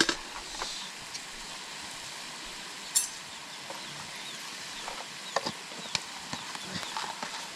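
Food sizzling steadily as it fries, with a sharp click about three seconds in and scattered small clicks of a utensil stirring it in the second half.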